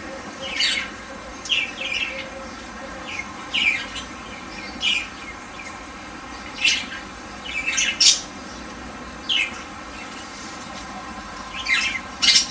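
Birds chirping: about a dozen short, high calls, spaced irregularly a second or so apart.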